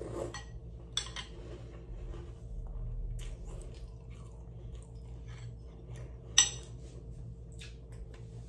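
Someone eating cereal from a bowl: a spoon clinking against the bowl and chewing, with a sharper clink about a second in and a louder one about six and a half seconds in, over a faint low hum.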